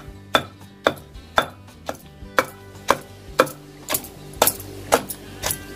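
A pestle pounding chopped onions and spice masala in a stone mortar, about two thuds a second. The strokes are kept light so the onions stay coarse rather than turning to a fine paste.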